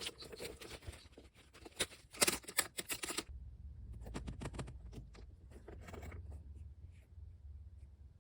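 Album packaging being handled: paper and plastic rustling and scraping for about the first three seconds, with one louder scrape a little after 2 s, then quieter scattered clicks and taps.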